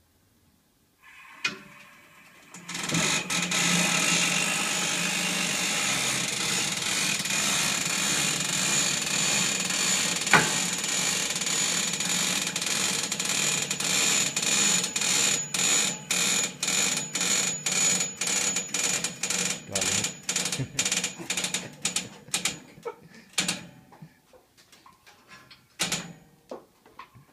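Air-ride suspension on a tube chassis: pressurised air hissing steadily through the valves and air bags, then in quick on-off bursts that stop a few seconds before the end.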